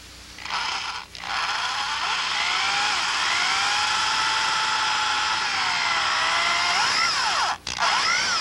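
Electric drill running in reverse, driving a Drill-Out broken bolt extractor into a broken steel bolt. It starts about half a second in, stops briefly just after a second, then runs as a steady whine; near the end the whine swings up and down in pitch several times, with one short stop just before the end.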